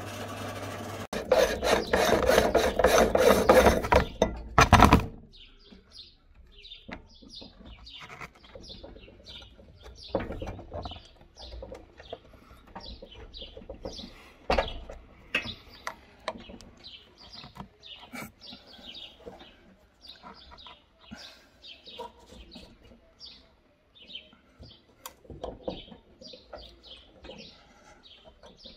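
Meat grinder crushing hard lollipop candy: a steady mechanical whir, then a few seconds of loud, dense grinding and crunching that stops about five seconds in. After that, birds chirping again and again, with scattered faint clicks.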